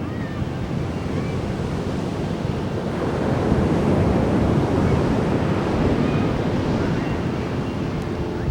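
Atlantic ocean surf breaking and washing up a beach, a steady rush that swells up in the middle and eases off again, with wind buffeting the microphone.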